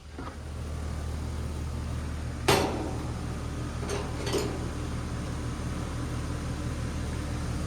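Central air-conditioning condenser starting up and running with a steady low hum, now that its failed capacitor has been replaced. A sharp metallic clink comes about two and a half seconds in, and two lighter clinks follow about four seconds in.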